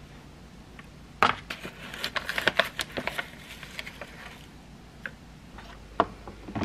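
A paper coffee bag rustling and a metal spoon scraping and tapping as ground coffee is scooped into a coffee maker's filter basket. The clatter lasts about two seconds and is followed by a few single light clicks.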